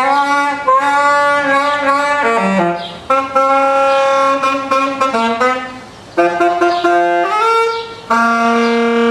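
Saxophone playing a slow melody of long held notes, with a downward slide about two and a half seconds in and short breaks between phrases near the end.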